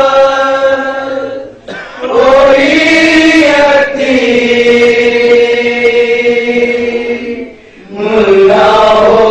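A man reciting a nauha, a Shia lament, unaccompanied in long held, wavering notes. The voice breaks off briefly for breath about two seconds in and again shortly before the end.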